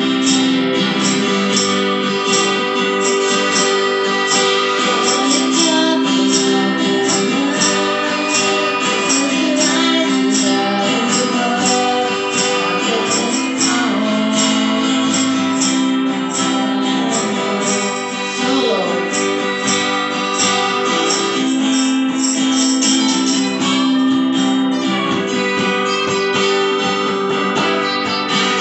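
Acoustic guitars strummed in a steady rhythm, playing sustained chords, with a woman singing along at times.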